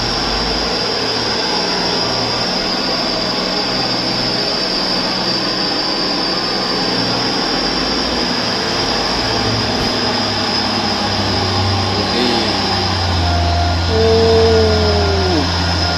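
Mitsubishi Fuso dump truck's diesel engine labouring up a muddy slope, its low hum growing louder as the truck draws near, over a steady high-pitched drone.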